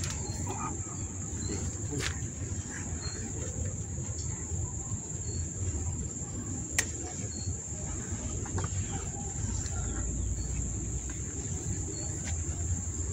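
Insects trilling steadily at a high pitch, with occasional short chirps and a single sharp click about seven seconds in.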